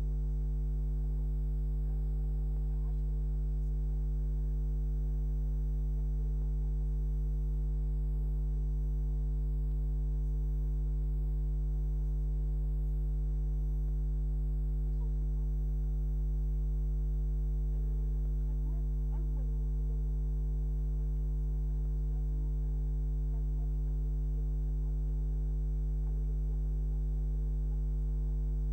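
Steady low electrical hum with a stack of overtones, unchanging throughout: mains hum picked up in the recording or playback chain.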